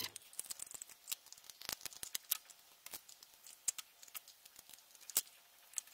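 Faint, irregular clicks and ticks of small-part handling on an LED bulb: tweezers working the wires at the bulb's metal cap and the plastic housing being turned in the hands, with a few sharper clicks among them.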